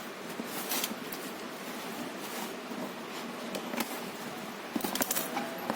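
A few sharp clicks and light rustles over a steady background hiss, about a second in and again between about four and five seconds.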